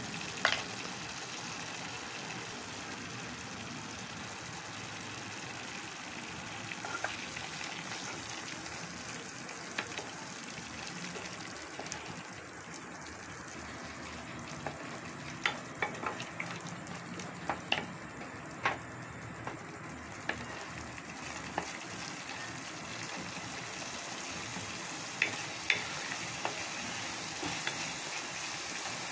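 Thick masala paste sizzling as it fries in an aluminium pressure cooker while a wooden spatula stirs it, with sharp taps and scrapes of the spatula against the pan, most of them around the middle and near the end.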